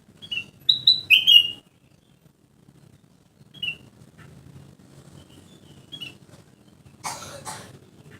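Kutilang emas, a bulbul, chattering: a quick run of loud short chirps in the first second and a half, then scattered single chirps, and two short harsh noisy bursts about seven seconds in.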